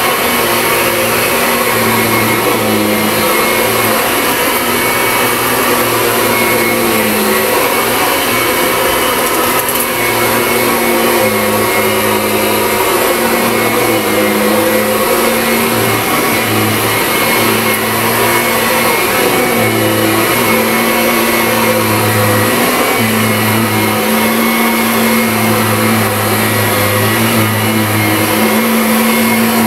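Kirby Ultimate G-Series Diamond Edition upright vacuum cleaner running while pushed back and forth over carpet. Its steady loud whir carries a low hum that swells and fades every few seconds.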